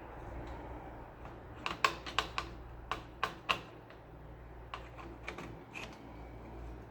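A quick series of sharp clicks and taps, loudest and densest between about two and three and a half seconds in, then a few fainter ones, over a steady low hum.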